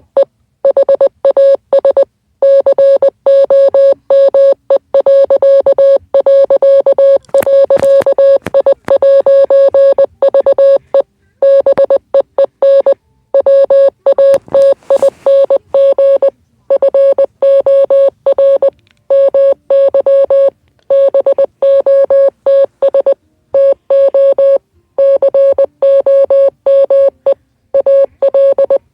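Morse code: a steady mid-pitched beep keyed on and off in short dots and longer dashes, with longer gaps between letters and words, spelling out a coded message.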